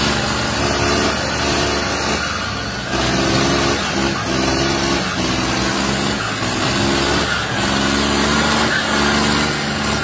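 Tractor diesel engine running hard under heavy load, pulling so hard that the front wheels lift off the ground. The pitched engine note comes and goes in surges of about a second.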